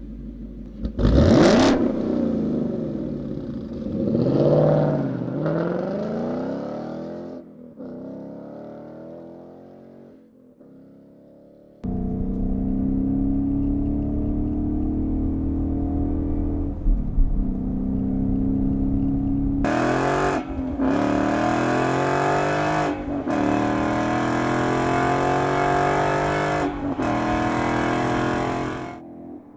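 2015–2017 Ford Mustang GT's 5.0 L V8 through a Borla S-Type cat-back exhaust: a sharp rev about a second in and another a few seconds later, falling away. Then, from about twelve seconds in, it runs loud and steady under acceleration, the pitch climbing and dropping back several times.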